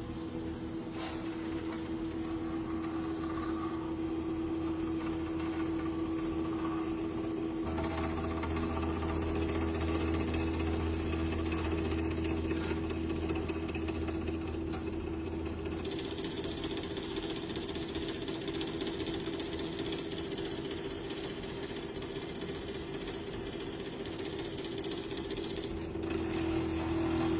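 NEMA-17 stepper motors of a CNC hot-wire foam cutter running with a steady mechanical whine. The sound shifts abruptly about eight, sixteen and twenty-six seconds in.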